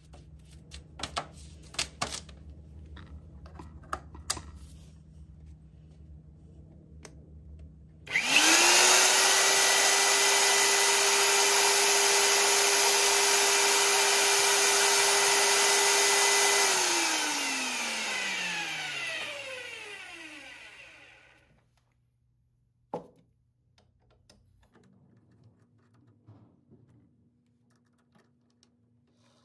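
Motor of a BLUEROCK BRM35A-B magnetic drill press switched on about eight seconds in, spinning up within a second and running steadily with a clear whine for about eight seconds, free-running with an empty chuck. It is then switched off and winds down, its pitch falling, over about four seconds. Light handling clicks come before it and a single click after.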